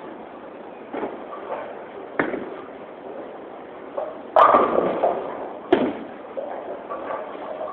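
Bowling pins crashing as a ball hits them: a loud clatter about halfway through, with sharper knocks of balls and pins a little before and after, over the steady rumble of balls rolling in the alley.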